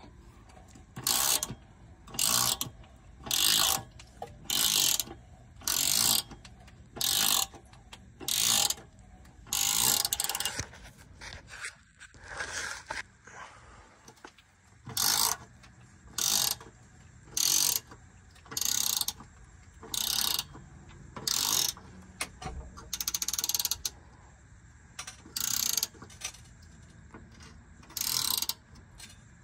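A hand ratchet clicking in short, even strokes, about one a second, as it turns the lead screw of a scissor transmission jack to lower a transmission. The strokes pause for a few seconds in the middle, then carry on.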